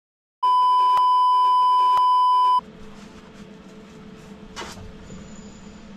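A loud, steady electronic beep about two seconds long, a single held pitch that starts and stops abruptly, dubbed in at the edit. After it comes a quiet, steady low hum with one faint tap.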